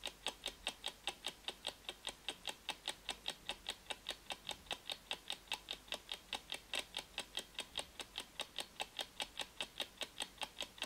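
Clock ticking sound effect: quick, even ticks, about four to five a second, keeping a steady tick-tock rhythm for a countdown timer.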